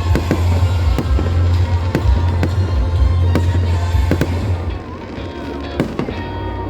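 Aerial fireworks going off in rapid succession, sharp bangs over a continuous deep rumble of booms, with music playing underneath. The barrage thins and the level drops about two-thirds of the way through.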